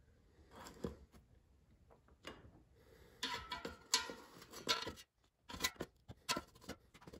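Kitchen tongs clicking and scraping against the metal basket of an air fryer as baked cinnamon rolls are lifted out, in a run of short irregular clicks, busiest from about three to five seconds in.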